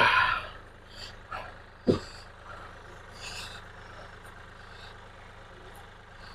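Kioti CK4020 compact tractor's diesel engine idling steadily, with a single thump about two seconds in and a short scrape a little past three seconds as a railroad tie is dragged by rope across the truck bed onto the pallet forks.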